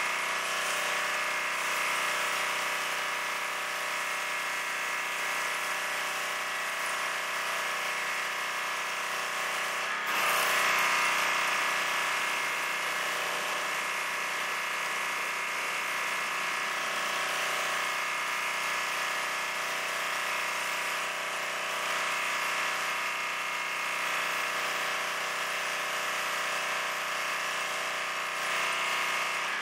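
Duromax XP2700PWS pressure washer's 5 HP gas engine running steadily under load, with the hiss of the high-pressure spray rinsing foam off a car. The sound gets briefly louder about ten seconds in.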